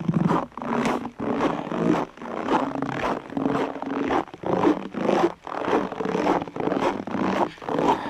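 Footsteps crunching in dry, deeply frozen snow at a steady walking pace, about two steps a second.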